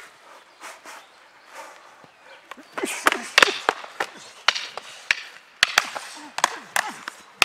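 Rattan fighting sticks cracking together and striking the fighters' gear in a rapid flurry of sharp blows that starts about three seconds in, after a few seconds of softer sounds.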